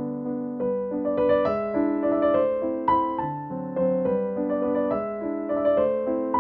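Background music: a piano melody of short notes over held chords.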